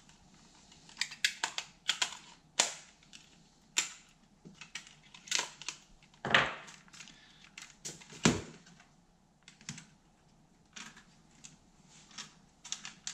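Irregular sharp clicks and knocks from handling the plastic electric flyswatter and parts on the workbench. The two loudest knocks come about six and eight seconds in.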